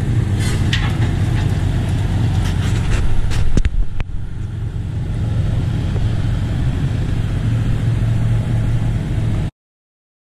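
1963 Chevrolet C20 pickup's engine running as the truck drives off, a steady low rumble. A few sharp knocks come about three and a half to four seconds in, and the sound cuts off near the end.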